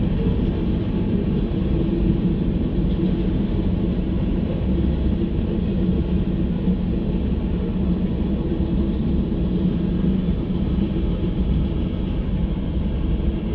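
Freight train of hopper and autorack cars rolling steadily through a road crossing, a continuous low rumble of wheels on rails heard from inside a stopped car.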